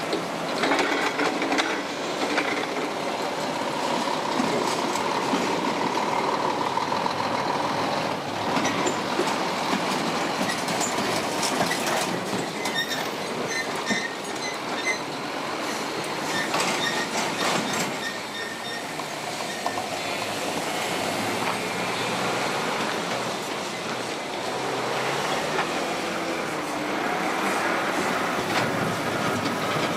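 Heavy lorries driving slowly over a railway level crossing: diesel engines running, with a run of knocks and clanks partway through as the wheels of a curtain-sided articulated trailer cross the rails.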